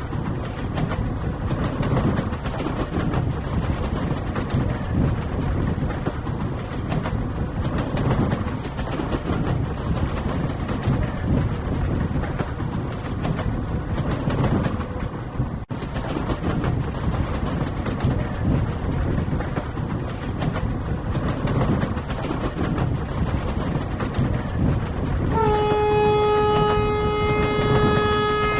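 Indian Railways train running on the rails with a steady low rumble. About 25 seconds in, a locomotive horn starts, one steady note held to the end.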